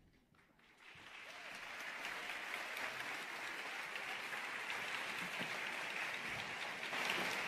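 Theatre audience applauding: the clapping starts about a second in, builds over the next second, then holds steady.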